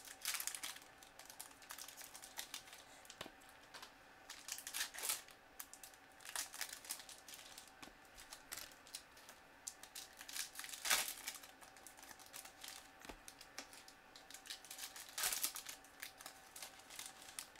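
Trading card pack wrappers crinkling and tearing, with cards being handled on a table: irregular crackly rustling in a few louder bursts.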